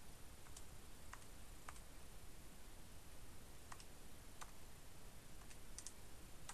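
Buttons of a pocket scientific calculator being pressed, giving a few faint, irregularly spaced clicks.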